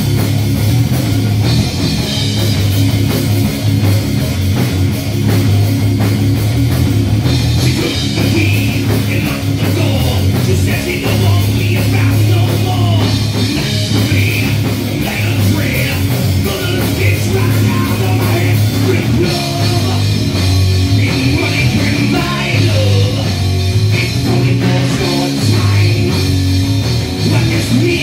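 A rock band playing live: electric guitar, bass guitar and drum kit, with a man singing into a microphone.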